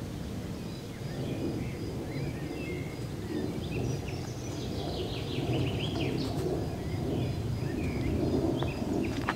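Small birds chirping and trilling over a steady low outdoor background noise, with an insect's faint, evenly pulsing high trill.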